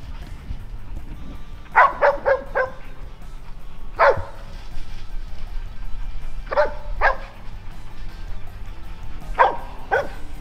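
Hog-hunting dogs barking in short, sharp barks that come in small clusters every couple of seconds: dogs baying a hog held up in thick brush.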